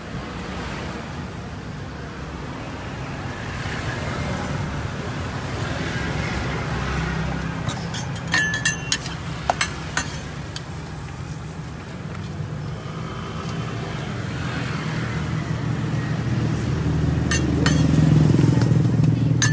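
Steady rumble of street traffic that grows louder toward the end, as a vehicle comes close, with sharp metal clinks of cooking utensils at a roti griddle, a cluster about eight to ten seconds in and a few more near the end.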